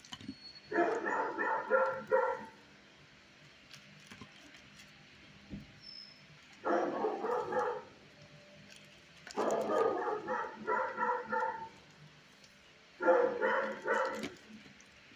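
Dog barking in quick runs of rapid barks, about five a second, in four bouts with pauses between them.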